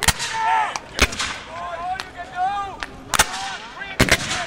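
Black-powder rifle-muskets firing blanks, single cracks at uneven intervals about a second apart, with two shots close together near the end.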